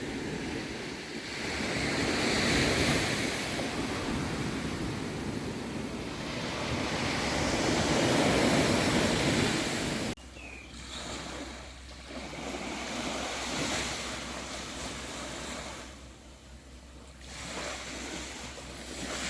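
Sea waves washing onto a beach, swelling and falling back every few seconds, with wind on the microphone. The sound changes abruptly about ten seconds in and is quieter after.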